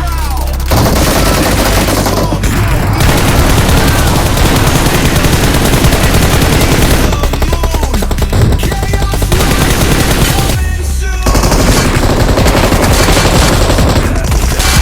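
Very loud, rapid automatic-gunfire-like rattle mixed with music, breaking off briefly a few times.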